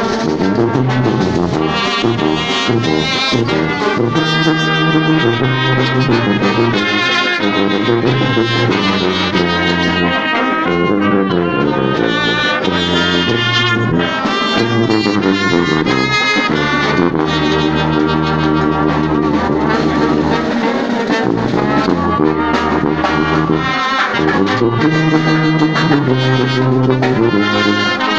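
Brass band playing a tune, with sousaphone and trumpets, recorded right beside the sousaphone's bell. Low bass notes are held under a busy melody line, loud and without a break.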